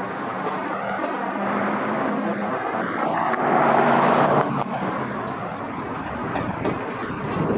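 Union Pacific freight train rolling slowly through the junction, with a steady low diesel locomotive drone under a haze of city highway traffic noise. A louder rush of noise builds just past halfway and cuts off abruptly.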